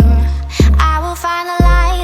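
Pop song with a woman singing over deep, heavy bass notes.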